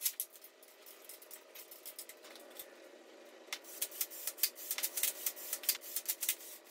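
Light, irregular metallic clicks and ticks from a cordless driver and bolts being worked on an LS V8's cylinder head, thickest in the second half, with a faint steady hum underneath.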